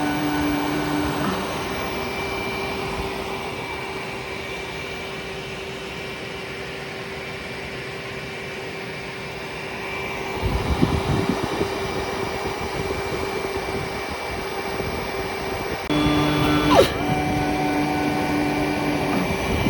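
APSX-PIM V3 injection molding machine with its part picker running: a steady mechanical hum with a constant mid tone and a fainter high whine. About halfway through a low rumble comes in for a couple of seconds, and near the end a louder motor tone starts abruptly, with a quick downward sweep in pitch.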